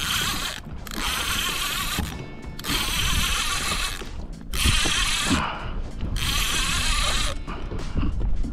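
Conventional lever-drag fishing reel (Shimano SpeedMaster) working under the load of a hooked fish: rasping, ratchet-like mechanical bursts of about a second each, some five or six of them with short breaks between.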